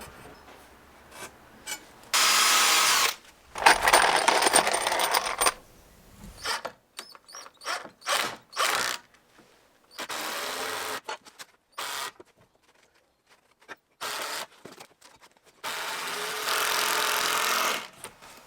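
Power drill driving big screws in several bursts of one to two seconds each, with short knocks and clatter between the runs.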